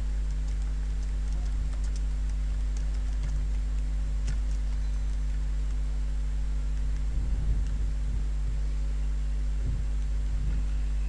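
Computer keyboard typing, a run of light key clicks over the first few seconds, over a steady electrical hum.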